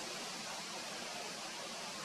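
Steady, even hiss of outdoor background noise, with no call, footstep or other distinct event.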